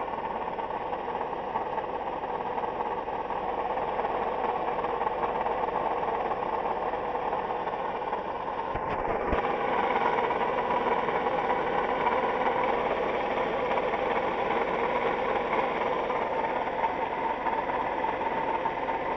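Toyota 2GR-FE 3.5-litre V6 idling in the engine bay with a steady whirring, knocking noise from a failing water pump, a little louder about halfway through.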